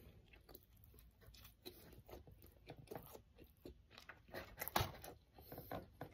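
A person chewing food close to the microphone: soft, irregular crunches, a little louder about four to five seconds in.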